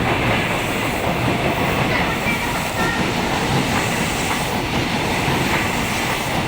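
Train running past close by, a steady loud rumble and clatter of wheels on the rails.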